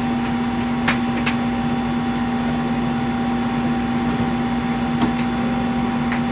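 A steady machine hum with a constant low tone, and a few faint clicks about a second in and again near the five-second mark.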